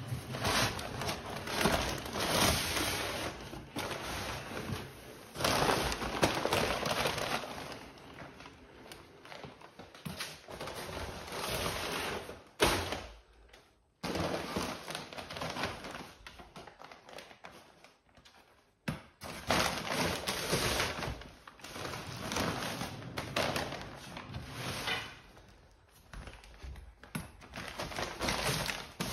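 Packing paper and plastic sheeting rustling and crinkling as they are handled and stuffed into a large cardboard shipping box, with a few knocks against the cardboard and short pauses.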